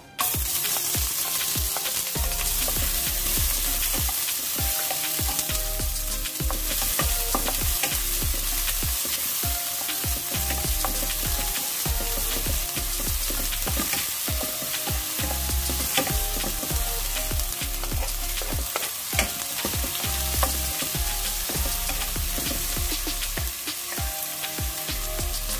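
Sliced red onions frying in hot oil in a wok, with a steady sizzle that starts abruptly as they hit the oil. A wooden spatula stirs them through the pan.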